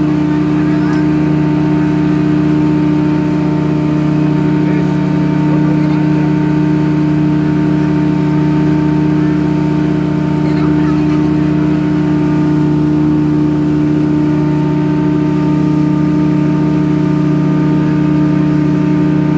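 A ship's engine running with a steady, unchanging drone.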